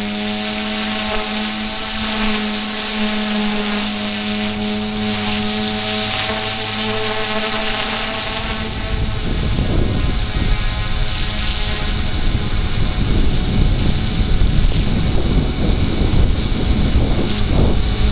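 E-flite Blade mCP X micro RC helicopter with an HP05 brushless main motor, heard from its own onboard camera: a steady high motor whine over the drone of the rotor. About halfway through, a rough low rumble joins in.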